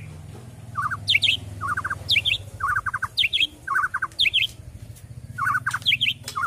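White-rumped shama chirping in a steady pattern: a quick run of three or four short notes, then a higher double note, repeated over and over with a short break about two-thirds of the way through.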